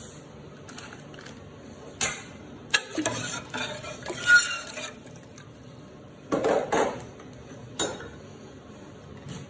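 Metal utensil stirring beef and braising liquid in a steel pressure-cooker pot, clinking and scraping against the pot in several separate strokes, the loudest about four seconds in.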